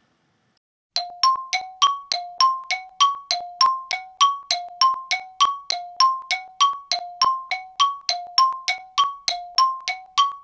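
A bell-like two-note chime, struck over and over in a quick, even alternation of a lower and a higher note, about five notes a second, starting about a second in.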